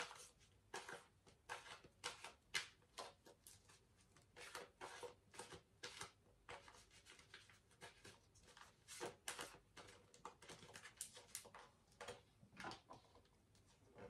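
Tarot deck being shuffled and handled by hand: a faint, irregular run of soft card clicks and rustles, a few each second.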